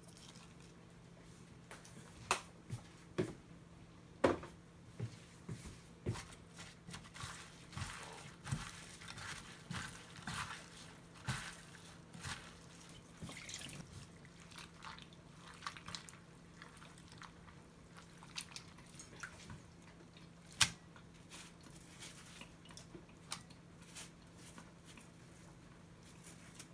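A rubber-gloved hand kneading and squeezing thin chayote slices in a glass bowl, first with salt and then in water: irregular wet squishing and splashing with scattered sharp ticks against the glass.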